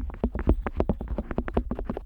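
Otoscope worked against the ear of a Neumann KU100 dummy-head microphone, heard right at the ear as a rapid run of soft taps and scrapes, about ten a second, with a deep thudding underneath.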